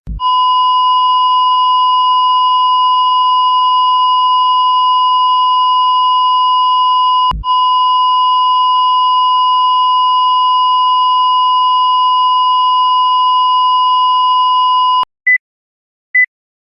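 Cardiac monitor flatline alarm: a continuous steady beep signalling asystole, broken off once about halfway through. Each onset of the tone comes with a short low thump, the defibrillator paddle effect. Near the end the flatline stops and single short, higher heartbeat beeps resume about once a second.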